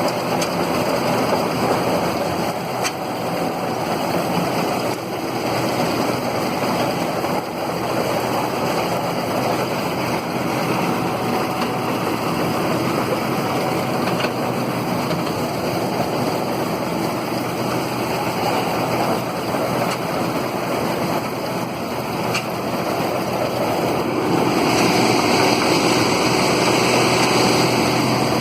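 New Holland TF44 combine harvester running steadily, getting louder near the end.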